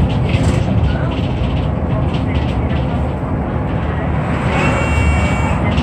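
City bus running, heard from inside the cabin: a steady low rumble of engine and road noise. A thin high whine joins for about a second near the end.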